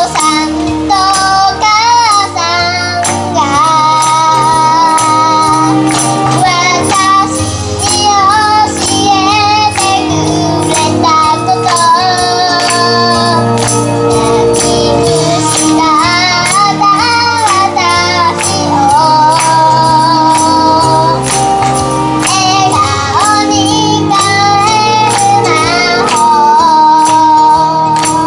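A young girl singing a pop song over a backing track with a steady beat.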